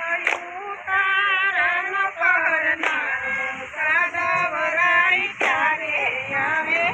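Voices singing a Gujarati garba folk song in unison for the garba circle dance, with a sharp hand clap three times, about every two and a half seconds.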